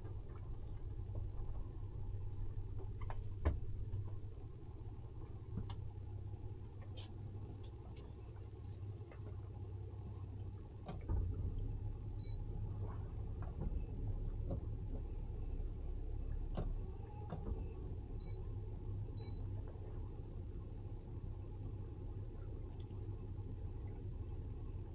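A towboat's outboard engine running at low speed under the load of a boat on a tow line, a steady low rumble with scattered light knocks and clicks.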